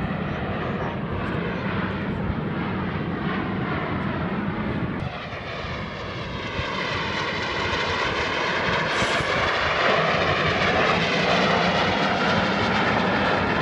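Canadian Forces Snowbirds CT-114 Tutor jets flying over, their single turbojet engines making a steady jet rush. A jet passing lower adds a sweeping, phasing whoosh that grows louder over the second half.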